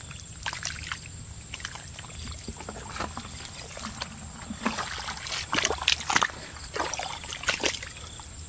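Wet mud squelching and shallow water sloshing as hands dig and grope through a muddy pool, with a cluster of sharper splashes and slaps about five to seven seconds in.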